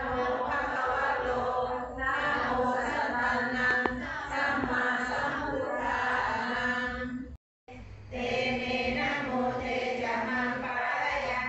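A group chanting Buddhist prayers in unison, voices held on one steady reciting pitch. The sound drops out completely for a moment about seven and a half seconds in, then the chanting resumes.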